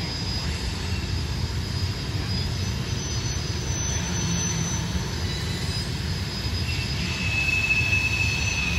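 Distant rumble of two EMD diesel locomotives hauling a long freight train upgrade, heard across a valley. A faint high squeal joins about seven seconds in.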